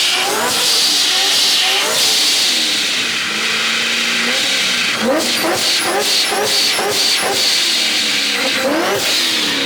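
Car doing donuts: the tires squeal steadily against the pavement while the engine revs up and down hard, with quick rising blips of revs in the middle stretch.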